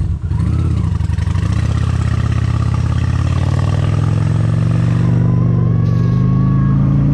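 Honda Shadow's V-twin engine pulling under throttle in one gear, its pitch rising slowly and steadily, with wind rush over it.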